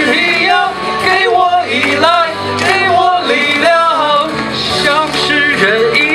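A singer performing a Mandarin pop song over backing music, the sung line continuing without a break.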